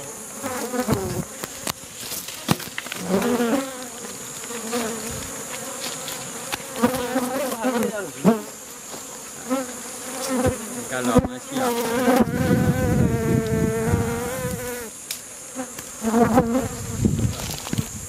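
Honey bees from a basket hive that is being taken down, buzzing around and close past the microphone. The buzzes rise and fall in pitch as individual bees fly by, and one hovers near the microphone with a steady buzz for a few seconds past the middle.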